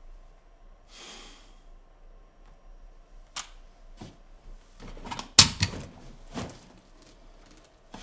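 A man breathes out heavily, then comes a run of sharp clicks and knocks, the loudest about five and a half seconds in.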